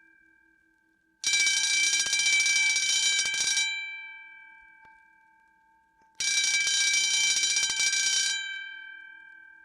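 Electric alarm bell ringing in two short bursts of about two seconds each, a few seconds apart. After each burst the bell's tone rings on and fades away.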